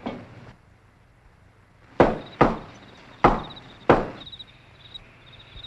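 A fist knocking on a wooden plank door: four sharp knocks spread over about two seconds.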